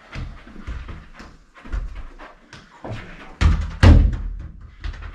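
A football being worked with the feet on a carpeted floor: soft touches and footsteps throughout, then two loud thuds about three and a half seconds in as the ball is played hard against the wall and comes back.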